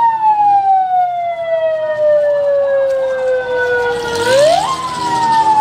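Patrol vehicle siren wailing: one tone glides slowly down, then about four seconds in swoops back up and begins falling again.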